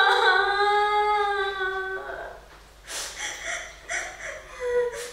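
A young woman crying: a long, drawn-out wailing sob that slowly falls in pitch over about two seconds. Then come short, breathy, broken sobs and sniffles.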